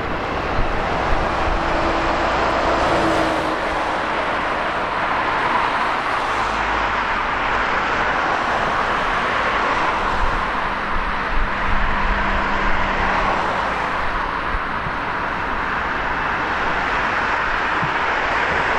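F-15 fighter's twin turbofan engines on landing approach: a steady jet rush.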